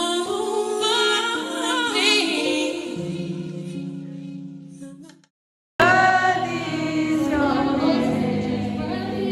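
Music with singing voices, which fades out about five seconds in; after a brief gap of silence the singing starts again abruptly.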